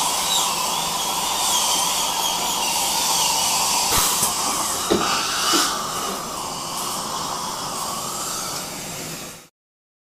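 Electric drill running steadily with a high motor whine. There is a sharp click about four seconds in and a few knocks around five seconds. After that it runs a little quieter, then cuts off suddenly near the end.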